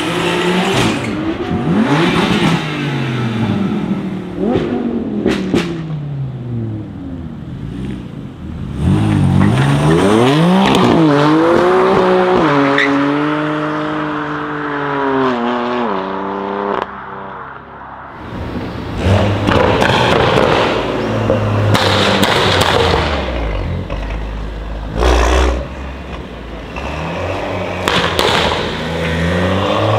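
BMW M4 straight-six engine revving hard while its rear tyres spin and squeal in a smoky burnout, then pulling away at full throttle with the pitch climbing through the gears. Another BMW follows with a few sharp cracks near the end.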